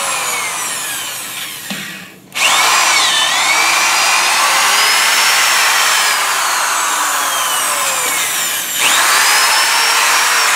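Corded electric drill turning a 3/8 reamer through freshly installed knock-in valve guides in a big-block Chevy cylinder head, reaming out the hourglass narrowing left from pressing the guides in. The motor's whine rises and falls as the reamer loads; it stops for a moment about two seconds in, starts again, and dips once more later.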